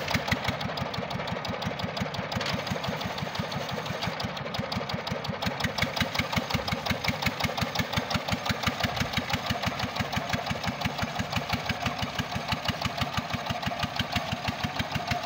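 Small tractor engine running steadily under load as it pulls a disc plough through the soil, with an even, rapid pulsing beat.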